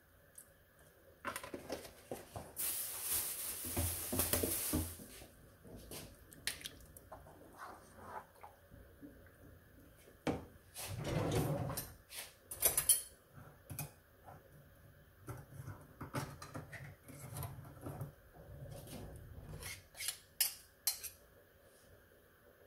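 Kitchen handling sounds as milk is added to a large steel pot of thick porridge and stirred with a wooden spoon: scattered knocks and clinks of the spoon, cans and containers against the pot. About three seconds in there are a couple of seconds of hissing noise, and a louder bout of clattering comes about halfway through.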